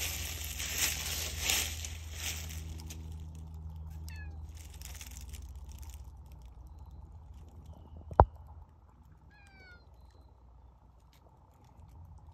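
Domestic cat meowing twice, short calls about four seconds in and again about nine and a half seconds in. Before them, in the first couple of seconds, dry leaves crunch. A single sharp click comes just after eight seconds.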